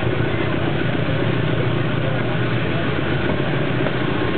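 Steady running noise of a train in motion, heard from on board: the diesel engine of a GE C18-7i diesel-electric locomotive together with the wheels on the rails.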